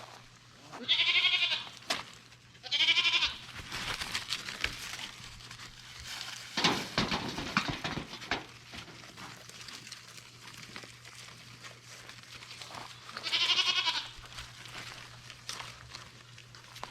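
Goat kids bleating: three high, wavering bleats, two close together near the start and one more about thirteen seconds in. Scattered rustles and small knocks fall between them.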